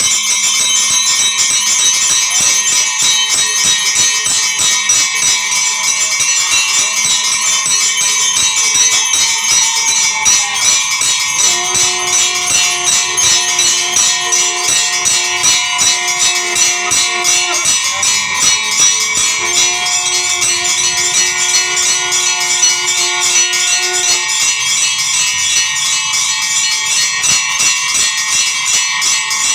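Temple bells ringing continuously in a fast, clanging stream during worship. In the middle a steady sustained tone is held twice, for several seconds each time, over the ringing.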